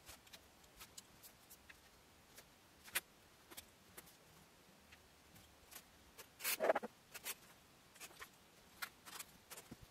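Faint handling noises of a sewing workbench: scattered light clicks and ticks as a tape measure and metal ruler are moved over layered fabric and a pen marks the cloth, with one louder burst of handling noise about six and a half seconds in.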